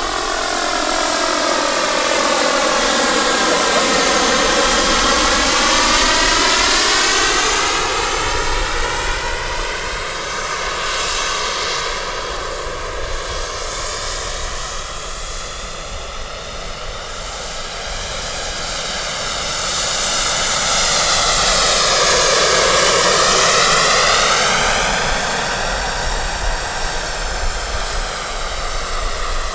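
Large radio-controlled scale SA 315B Lama helicopter with a small gas-turbine engine, flying: a steady high turbine whistle over the drone of engine and rotor. The sound swells twice, early on and again about two-thirds of the way through, and each time its pitch dips and then rises again.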